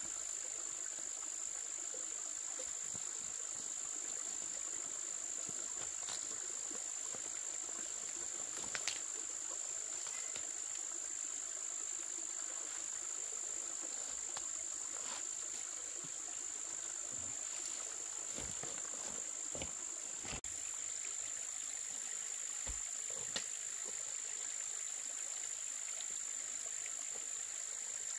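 Steady, high-pitched drone of insects calling without a break, with a few faint, scattered knocks.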